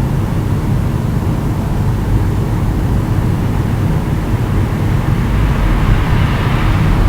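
Steady low rumble of a neighbouring house's water heater running, growing a little louder and brighter near the end.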